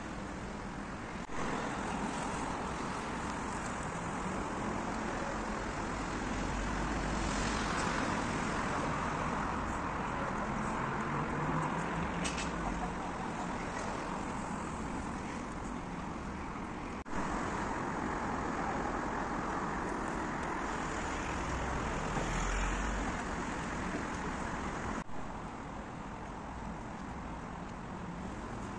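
Road traffic noise: a steady hum of passing cars and vans, with low rumbles swelling twice as vehicles go by.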